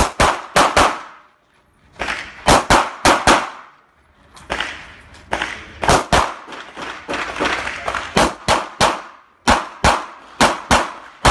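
Glock pistol fired in rapid strings of shots, several strings of three to six quick shots separated by short pauses as the shooter moves between shooting positions during an IPSC stage.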